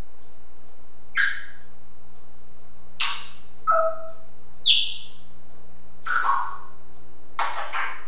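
African grey parrot calling: about six short squawks and chirps, some gliding in pitch, spaced about a second apart.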